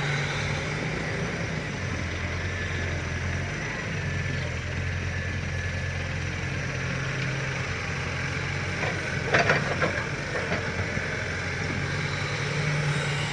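Fiat-Hitachi 150.3 excavator's diesel engine running steadily, with a short burst of clattering about nine and a half seconds in.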